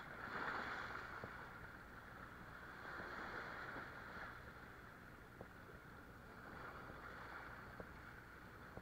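Sea waves washing in over shoreline rocks and draining back, swelling three times, with a few faint ticks.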